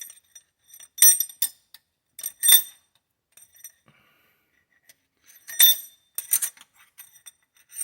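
Steel pushrods from a small three-cylinder John Deere diesel clinking against each other and the engine as they are handled for inspection. There are several sharp, ringing metallic clinks in small clusters, about a second in, around two and a half seconds, and twice more in the last third.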